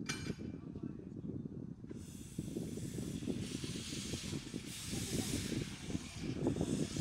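Steam locomotive hissing, a high hiss that comes in about two seconds in and swells in uneven waves over a low rumble, after a sharp click at the very start.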